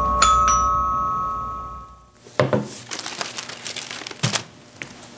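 Bell-like chime notes, struck twice and ringing out as they fade away over about two seconds; after a brief gap, a scattering of light, irregular clicks and knocks.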